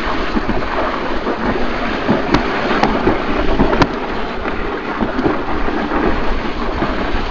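Summer-toboggan sled running down a concrete trough track: a loud, steady rumbling scrape of the sled on the channel, with a few sharp clicks around the middle.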